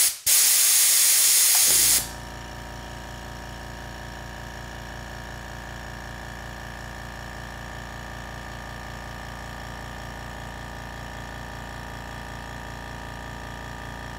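Compressed air hissing loudly from a blowgun, with a brief break just after the start, then stopping about two seconds in. Underneath, the Fortress FT2135UQ ultra-quiet 2-gallon air compressor's motor kicks on as the tank pressure falls to its cut-in point, around 100 PSI, and runs with a steady low hum, refilling the tank.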